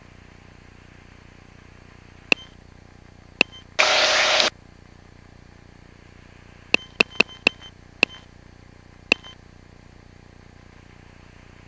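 Aircraft radio over a quiet intercom hiss: a string of sharp clicks, each with a short beep, and about four seconds in a brief burst of static lasting under a second. No words are spoken.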